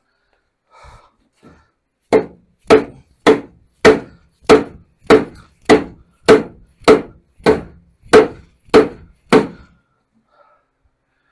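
A mallet striking the lower trailing arm of a VW Beetle front beam, knocking it further onto the beam: thirteen steady blows about two-thirds of a second apart, each with a short ring.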